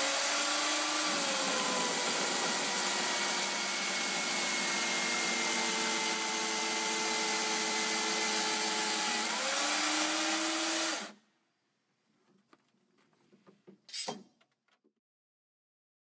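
Electric chainsaw cutting a horizontal slot into the end of a timber beam, running steadily with its motor pitch dipping about a second in and rising again just before it switches off abruptly about eleven seconds in. A brief faint knock follows a few seconds later.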